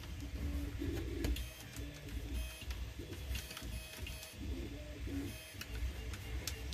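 Tarantula Pro 3D printer's stepper motors running, a string of short whirring tones that change pitch every fraction of a second, with a few small clicks of plastic parts and a screwdriver being handled.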